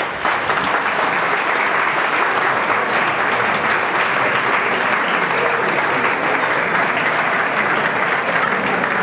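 Roomful of diners applauding: many hands clapping steadily and warmly for the whole stretch.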